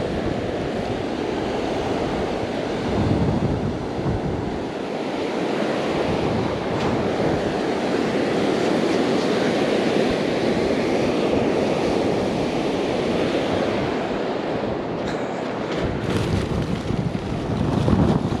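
Ocean surf breaking and washing up a sand beach in a steady rush, with wind buffeting the microphone. Near the end come a few short clicks and scuffs.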